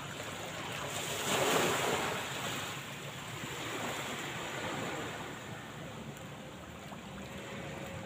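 Small waves washing onto a sandy beach, with wind. The loudest wash comes about a second and a half in and a softer one follows a few seconds later.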